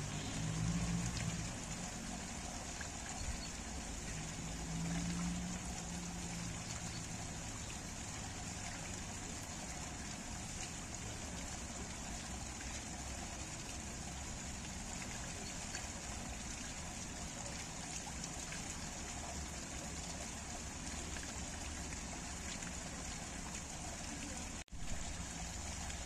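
Spring water spouting from a pipe in a stone wall and splashing onto a pile of rocks, a steady trickling and splashing flow. A low rumble swells briefly twice in the first six seconds, and the sound cuts out for an instant near the end.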